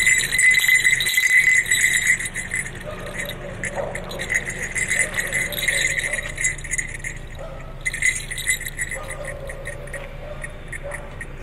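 Small brass jingle bells on the horns of a jester clown mask jingling as the mask is shaken. The jingling is loudest in the first two seconds, pauses briefly about seven and a half seconds in, then comes back more faintly.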